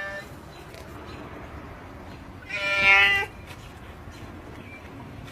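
A cat meowing: the end of one meow right at the start, then one loud, drawn-out meow about two and a half seconds in.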